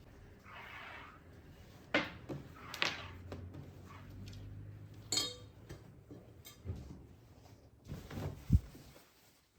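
Kitchen handling sounds: scattered knocks and clicks. There is a ringing clink about five seconds in and a dull thump near the end.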